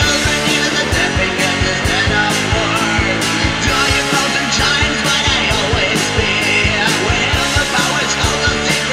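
Punk rock band recording with surf-rock guitar: electric guitar and bass over drums, with cymbal hits about twice a second in a steady driving beat.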